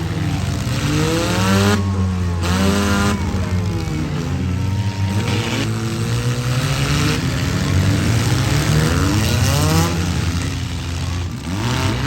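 Engines of several four-cylinder demolition derby cars revving, their pitches rising and falling over one another above a steady low drone.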